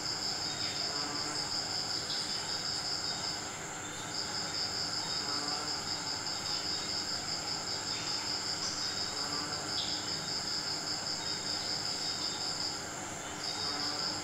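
Insect trilling, cricket-like: a fast-pulsed high trill that stops briefly about three and a half seconds in and again near the end, over a steady higher tone.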